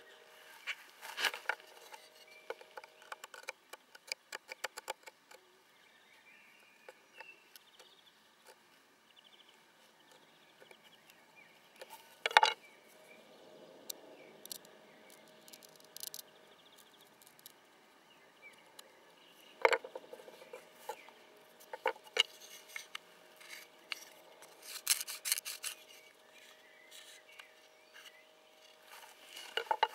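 Scattered clicks, taps and light rustles of a spruce and mullein hand-drill fire kit being handled and worked, with a quick run of small clicks in the first few seconds and a few louder knocks later.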